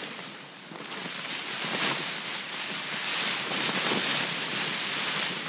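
Heavy rain and wind beating on a tent's fabric from inside: a steady hiss of rain with the wind pushing on the tent, louder from about a second in.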